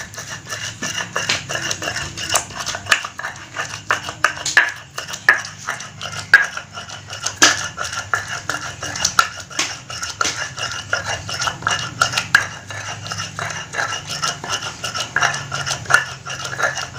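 A spice paste of shallots, garlic, ginger, candlenuts and pepper being ground by hand on a flat stone grinding slab with a hand-held grinding stone, the paste nearly smooth. Gritty stone-on-stone scraping with irregular sharp clacks, several a second.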